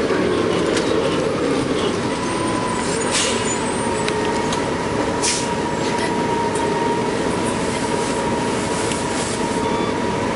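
New Flyer C40LF city bus with a Detroit Diesel Series 50G natural-gas engine and Allison B400R transmission, heard from inside while under way: a steady engine and drivetrain drone with a steady whine on top. A few sharp rattles come through about three and five seconds in.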